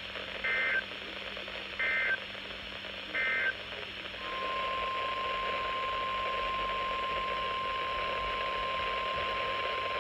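Three short bursts of EAS digital data, the end-of-message code that closes the warning, heard over radio hiss. About four seconds in, a steady single-pitch alert tone starts.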